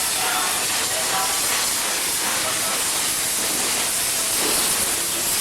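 Loud, steady hissing noise.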